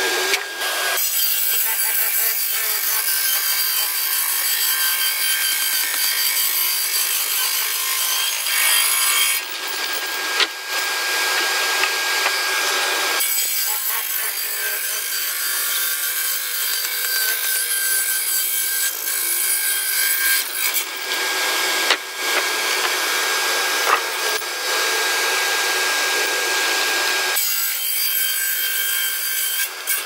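Large sawmill circular saw blade ripping lengthwise through a thick wooden plank. It makes a steady, high-pitched cutting noise over a faint steady whine, with brief lulls about ten seconds in and near the end.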